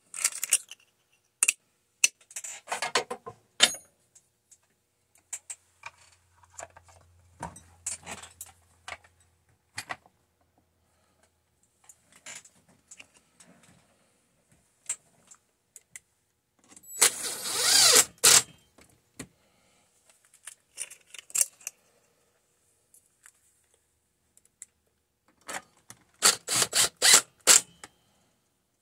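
Intermittent clicks, knocks and rattles of metal and plastic chainsaw parts being handled and fitted during assembly. There is a louder scraping rush lasting about a second and a half around the middle, and a quick run of clicks near the end.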